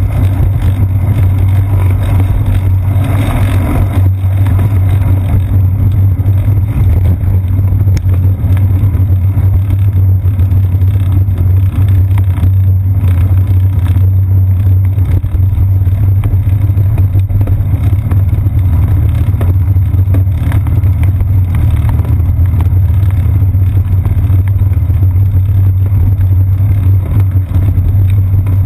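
Loud, steady low rumble of wind and road vibration on a seat-post-mounted action camera as the bicycle rides along a paved path.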